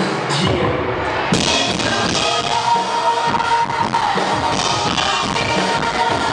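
Live pop-rock band with drum kit playing the opening of a song, recorded from the audience; the sound fills out with brighter, fuller band sound about a second in.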